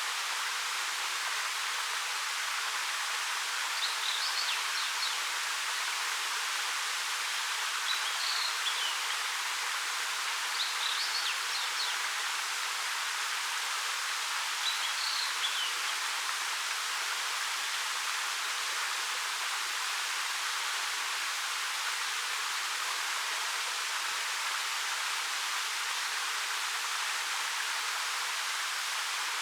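Steady rushing of a 13 m waterfall falling over rock, with a few short, high bird chirps in the first half.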